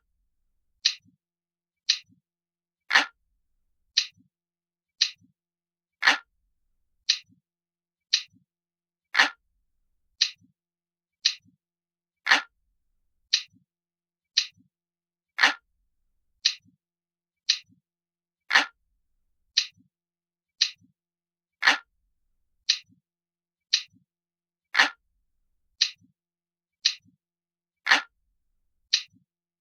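Clock ticking steadily, about one tick a second, with every third tick louder and deeper. It is a looped recording of a mechanical clock.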